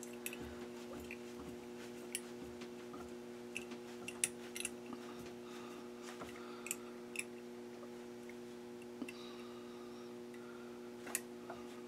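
Faint, irregular small clicks and ticks of music wire and pliers as a lathe chuck is turned by hand to wind the wire onto a mandrel, taking up the slack, over a steady low hum.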